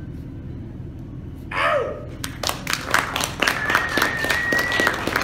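Wedding guests applauding a toast: a short cheer about a second and a half in, then a small crowd clapping quickly, with a high whistle held for about a second over the clapping near the end.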